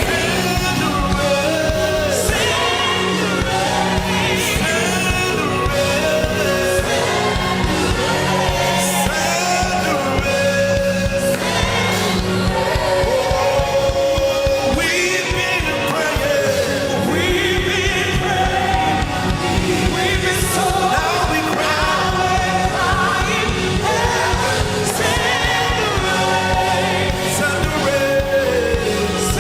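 Live gospel worship music: singers with a band, a steady bass line and beat under them.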